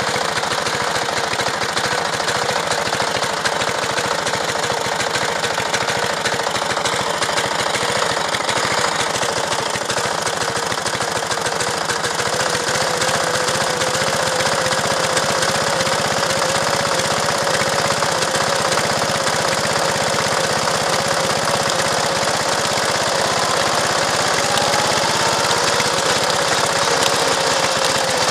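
Small engine of a miniature-railway speeder car running steadily as it travels along the track, with a whine that comes in about halfway through.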